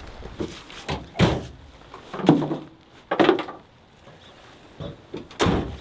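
Toyota Tundra pickup truck's tailgate being worked: a series of heavy metal thunks and knocks, about one to two seconds apart.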